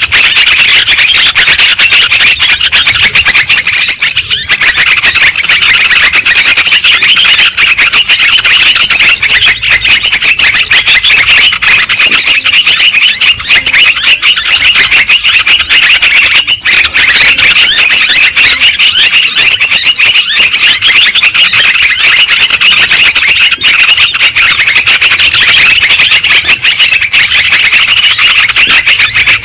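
Lure-call recording of yellow-vented bulbuls (trucukan): loud, dense, unbroken chattering calls, a bird-trapping lure track played to attract the birds.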